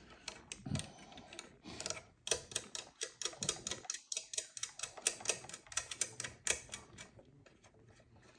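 A rapid run of light metallic clicks and taps, several a second for about four and a half seconds, as a 7/16 deep socket and the small control arm are worked into place on a Model A Ford's spark or throttle control rod.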